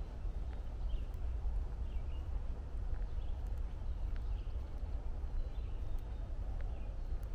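Footsteps on a woodland trail over a steady low rumble, with faint short bird chirps repeating every half second or so.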